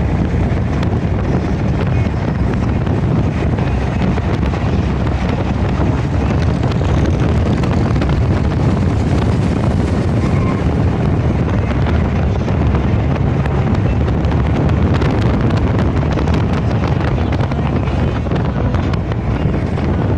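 Loud, steady wind buffeting on the microphone, mixed with the rumble of a moving vehicle.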